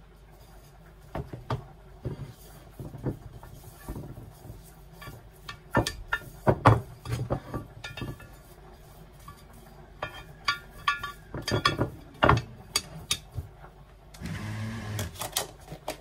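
Scattered light taps, knocks and clinks as a pastry brush is dabbed into a plastic margarine tub and brushed around the inside of a baking dish, which is handled as it is greased. A brief low hum lasts about a second near the end.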